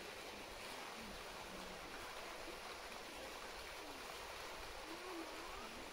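Steady rushing of water, like a stream, with faint distant voices of people near the end.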